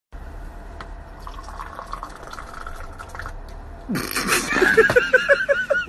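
Tea poured from a silver Moroccan teapot into a glass: a liquid stream splashing and filling, loudest from about four seconds in. It is followed near the end by a man's short, rapid snickering laughter.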